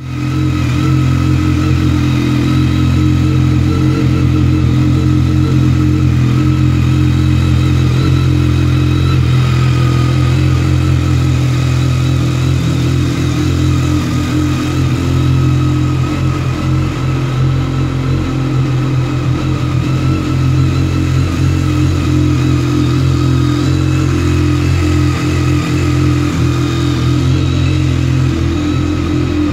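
BMW K1300R inline-four engine idling through an Arrow aftermarket exhaust, a steady, even exhaust note with no revving.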